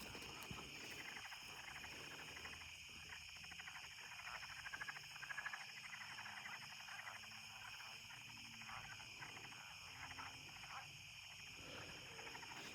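Faint frog calls, a run of quick pulses, over a steady high buzz of insects.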